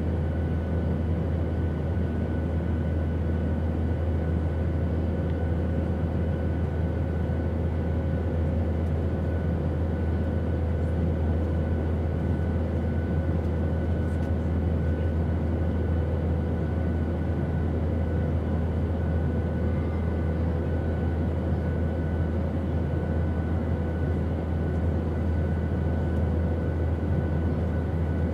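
Steady airplane noise: an even, unchanging rumbling drone, heaviest in the low range, with a faint steady whine on top.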